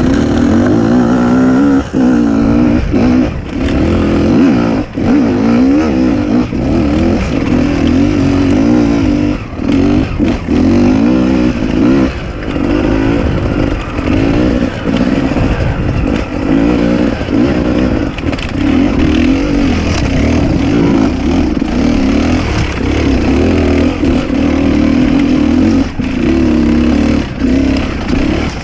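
Enduro dirt bike engine running under constant throttle changes, its pitch wavering up and down with short drops as the throttle is shut off, with a few knocks and clatter mixed in.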